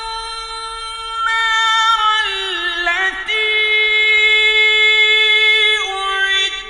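A male Quran reciter chanting in the drawn-out tajweed style, holding long high notes that step down in pitch and rise again a few times, with a break near the end.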